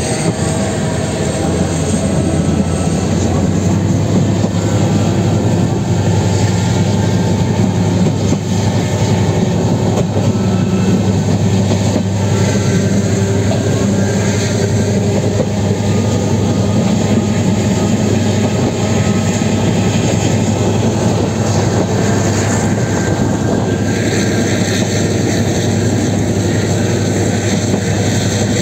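Passenger train running steadily at speed, heard from aboard: a continuous, even rumble of wheels on the track.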